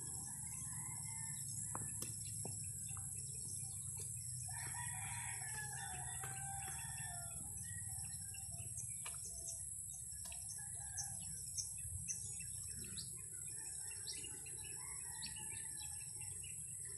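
A rooster crowing once, a long call starting about four and a half seconds in, with short high chirps scattered through the rest and a steady high-pitched drone underneath.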